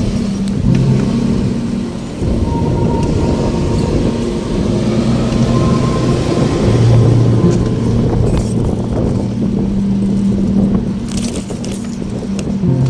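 Street noise heard from a moving bicycle: a steady low rumble of wind on the microphone and car traffic, with a brief rattle about eleven seconds in.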